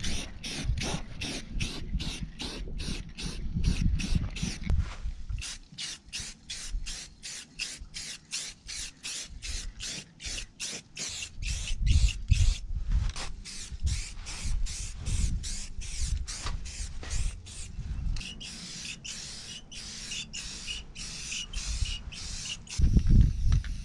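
Aerosol can of Rust-Oleum camouflage spray paint hissing in rapid, evenly spaced spurts, with gusts of wind rumbling on the microphone.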